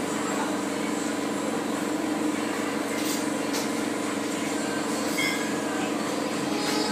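Steady mechanical hum with a few held low droning tones, the background machinery noise of a cafe, with a couple of faint clinks about halfway through.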